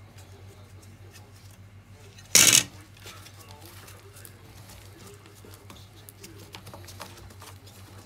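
Gloved fingers scraping and picking at dust and debris in the plastic dust compartment of a Miele S381 vacuum cleaner, making faint scratches and small clicks. A loud, brief noise about two and a half seconds in.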